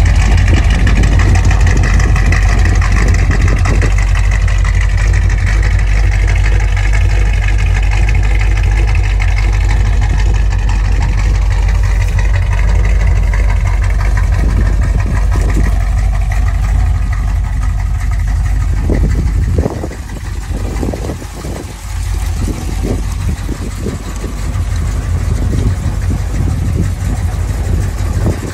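1965 AMC Marlin's engine idling with a steady low exhaust rumble. About twenty seconds in, the sound drops quieter and comes back unevenly for a few seconds.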